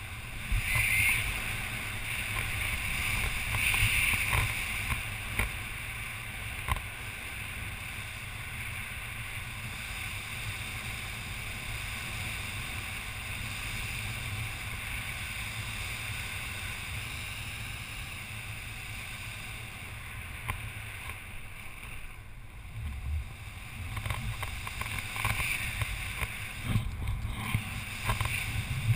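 Wind buffeting a body-mounted camera's microphone during a parachute descent under an open canopy: a steady low rumbling rush that swells briefly near the start, with irregular rustles near the end.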